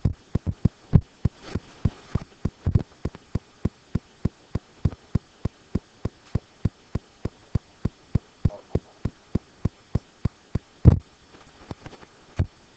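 Evenly spaced tapping clicks from working a computer's controls, about three a second, with heavier knocks at the start and again about eleven seconds in.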